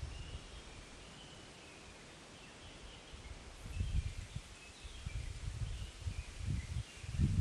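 Wind gusting on the microphone under a steady hiss, the low buffeting growing stronger from about halfway through, with birds chirping faintly above it.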